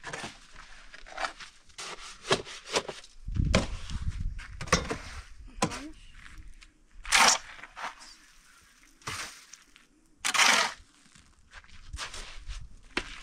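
Steel shovel scraping through and turning a cement-and-sand mix in a metal wheelbarrow, in a series of uneven strokes, two of them louder.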